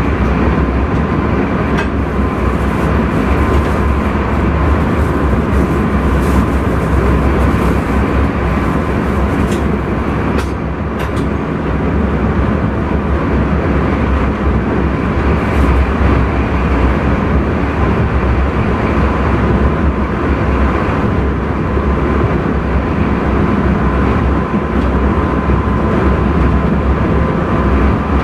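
Intercity train running, heard from inside the driver's cab: a steady, loud rumble of motors and wheels on rail with a faint high steady hum, and a few sharp clicks, two close together about ten seconds in.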